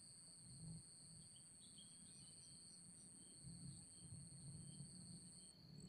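Faint insect song: two steady, unbroken high tones, the higher one dropping out briefly near the end, over a low rumble of wind and handling noise.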